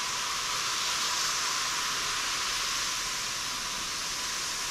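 Rough sea surf washing onto a beach: a steady hiss, mostly high with little low rumble, swelling slightly about a second in.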